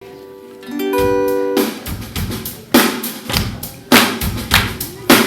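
Song intro: a short rising run of sustained notes, then a full drum kit enters about a second and a half in, with heavy kick and snare hits over a bass line.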